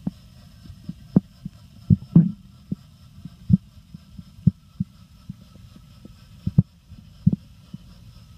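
Muffled underwater sound of a toy speedboat running overhead, heard through a submerged camera: a low steady hum with irregular dull knocks.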